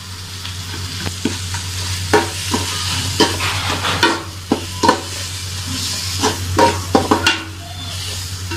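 Metal spoon stirring a frying onion-tomato masala in an aluminium pot: irregular scrapes and knocks against the pot over a steady sizzle, with a low steady hum underneath.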